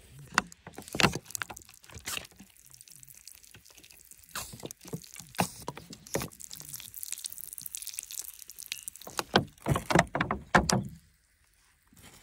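Scraping and crunching of wet, gravelly soil being worked at, in a run of irregular strokes that are heaviest about nine to eleven seconds in and then stop.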